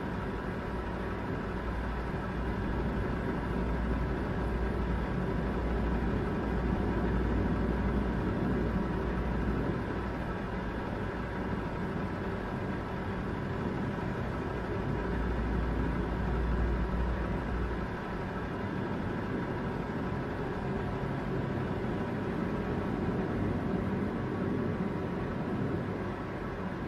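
Steady engine and road noise of a heavy truck hauling an oversize load under way, with a deep low rumble that eases off about two-thirds of the way through.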